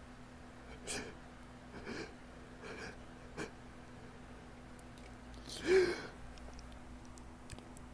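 Faint, short hitching breaths as a sneeze builds in a tickling nose, then a louder voiced gasp about six seconds in.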